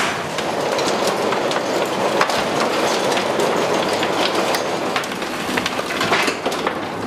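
Loose rock and earth pouring from a chute into a steel bin, a continuous loud rattling clatter dotted with sharp knocks.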